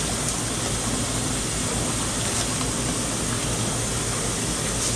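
Kitchen tap running a steady stream of water into a stainless steel pot that is already partly full of water.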